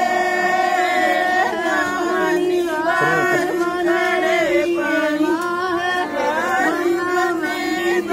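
Singing in an Indian style, with ornamented, wavering melody lines over a steady held drone note.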